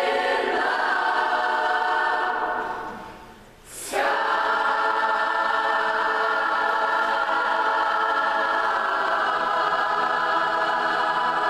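Large mixed choir singing with symphony orchestra accompaniment. A held chord dies away about three seconds in, then a loud new chord enters about a second later and is held long: the piece's closing chord.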